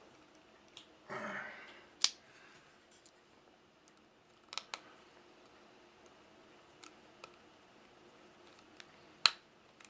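Plastic hull of a spent 20-gauge shotgun shell being cut through with a blade: scattered sharp clicks and snaps, with a short rustle about a second in and the loudest snap near the end.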